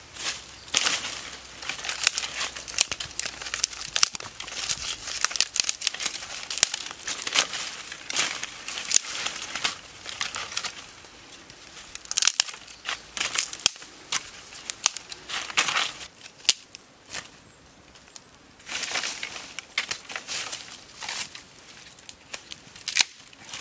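Dry sticks and brushwood crackling and snapping as they are handled, dragged into a pile and stepped on, in irregular bursts with a quieter lull about two-thirds of the way through.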